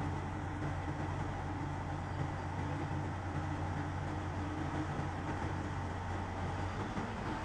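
Tugboat diesel engines running steadily: a constant low drone with an even hum and a faint higher tone above it.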